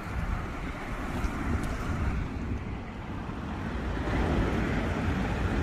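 Steady road and engine noise of a slowly moving car, with wind buffeting the microphone, growing a little louder near the end.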